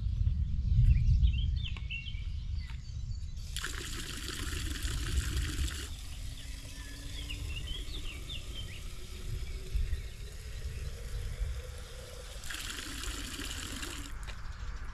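Water splashing from a public drinking fountain's spout into a plastic bottle, in two spells: one about three and a half seconds in lasting a couple of seconds, and another shorter one near the end.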